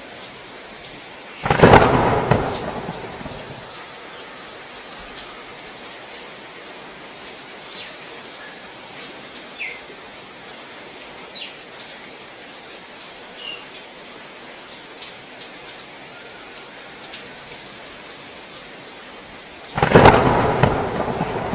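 Heavy rain falling steadily, with two loud sudden claps of thunder: one about a second and a half in that rumbles away over a couple of seconds, and another near the end.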